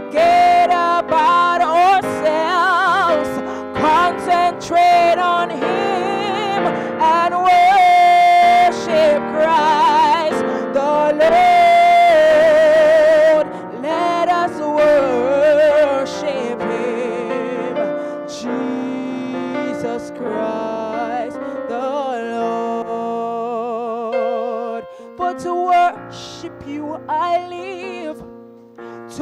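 A woman singing a gospel worship song into a microphone with strong vibrato and melismatic runs, over sustained piano-keyboard chords. The singing is louder in the first half and softens toward the end.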